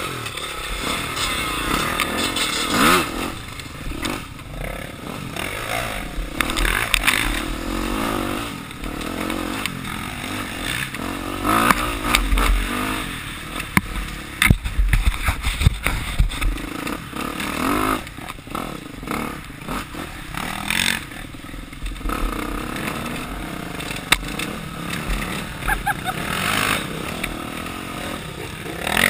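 Yamaha dirt bike ridden along a woodland trail, its engine revving up and down with the throttle, heard close from the rider's helmet. Clattering knocks from the bike over bumps, heaviest about halfway through.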